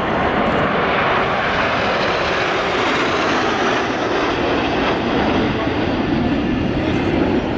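Jet engine noise from the Patrouille de France's Dassault/Dornier Alpha Jets flying past in formation: a loud, steady rushing noise that swells about a second in and holds.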